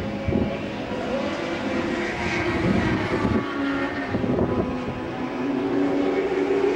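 Several sport motorcycle engines running on the circuit at a distance, overlapping, their pitch rising and falling as the bikes accelerate and change gear.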